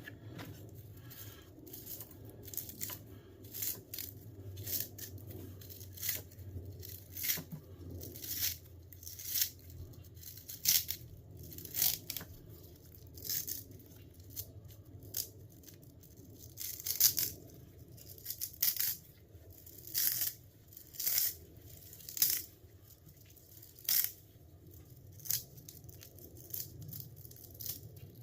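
Repeated short ripping or scraping strokes, roughly one a second, as parts of a scrapped electric heater are pulled and worked apart by hand. A faint low hum runs underneath.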